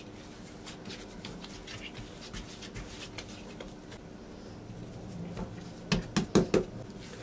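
Hands working a ball of buttery shortcrust dough on a floured silicone mat: soft rustles and light taps as it is pressed and turned, then a quick run of about four sharp pats near the end as the dough is pressed flat.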